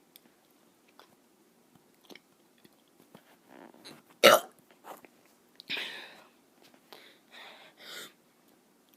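A child forcing out short, weak burps: one sharp, abrupt one about four seconds in, then a few softer, breathy ones.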